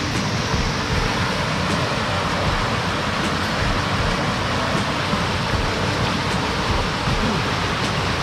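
River water rushing steadily, an even unbroken hiss, from a stream running high in flood.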